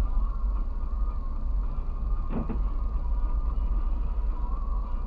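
Steady low rumble of a car's engine and road noise heard from inside the cabin, with one short creak about two and a half seconds in.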